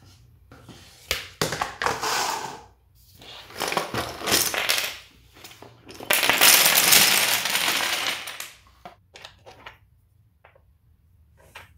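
Wooden domino blocks rattling in their tub in two bursts, then a long dense clatter about six seconds in as a pile of them is poured out onto a hard floor, followed by a few light clicks of single blocks.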